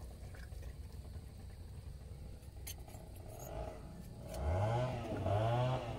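A low rumble with a single sharp click. Then, about four and a half seconds in, a small engine revs up in repeated rising sweeps and becomes the loudest sound.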